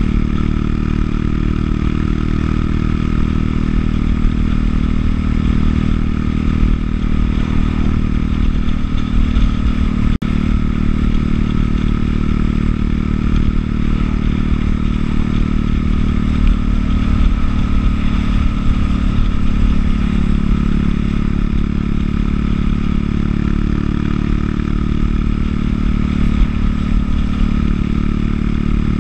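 Buell motorcycle engine running steadily at cruising speed, heard from on board the bike, its pitch shifting slightly partway through. The sound cuts out for an instant about ten seconds in.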